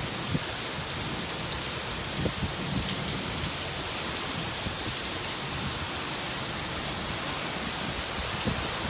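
Heavy rain pouring down steadily, a dense even hiss of drops on pavement and grass.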